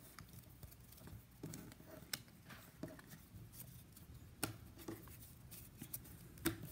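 Faint, scattered clicks and taps of trading cards being handled and set down on a table, the sharpest about four and a half seconds in and again near the end.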